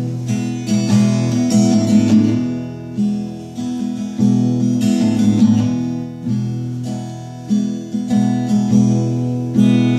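Acoustic guitar strummed on its own, a steady rhythm of chords in an instrumental passage with no singing.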